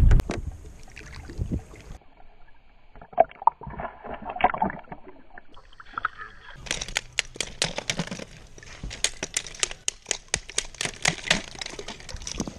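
River water sloshing and splashing right at the microphone, with a quick run of sharp splashes and drips from about seven seconds in.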